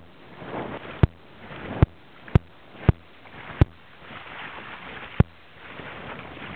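Water rushing and splashing along the hull of a small sailboat reaching in a fresh breeze, swelling and fading with the waves. Sharp, loud knocks cut through it six times at uneven intervals.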